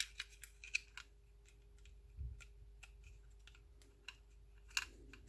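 Faint, scattered small metal clicks and taps as a new safety lever is fitted onto a field-stripped Grand Power pistol. A soft low knock comes a little past two seconds in, and a sharper pair of clicks comes near the end.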